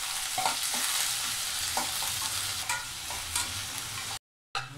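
Chopped onions sizzling in hot oil in a stainless-steel kadai, stirred with a metal spatula that scrapes and clicks against the pan. The sound cuts out to silence for a moment near the end.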